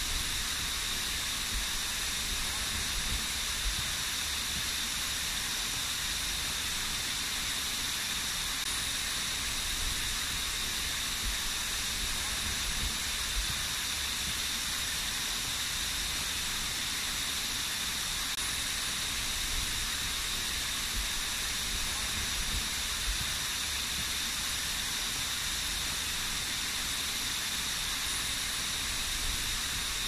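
Small waterfall splashing down a rock face: a steady, even hiss of falling water.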